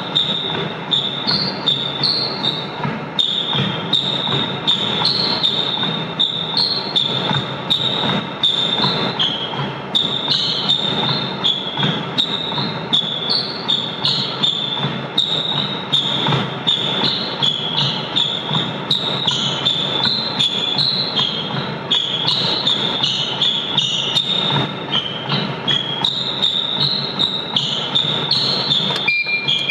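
Footfalls of a steady walk on a motorized treadmill: even thuds about two a second over the constant noise of the running belt and motor. A short electronic beep sounds near the end.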